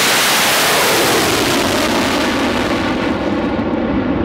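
Armadillo Aerospace STIG-A rocket engine at liftoff: a loud, continuous rushing roar of exhaust. The high hiss drops away after about three seconds as the rocket climbs off the pad, leaving a duller rumble.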